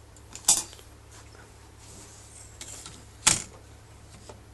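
Vanity cabinet parts being handled as the inside rail is pulled out: two short sharp knocks, about half a second in and after three seconds, with faint scraping between them.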